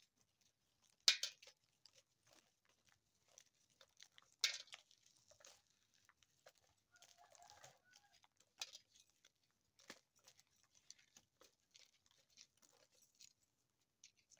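Dried popcorn kernels being twisted and rubbed off the cob by hand, dropping into a tray in scattered faint clicks and rattles, with two louder crackling bursts about a second in and again after four seconds.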